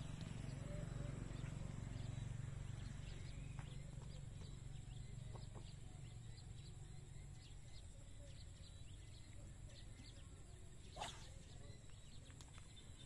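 Faint outdoor ambience with scattered short chirps and a low rumble that fades over the first half, broken by one sharper, louder sound about eleven seconds in.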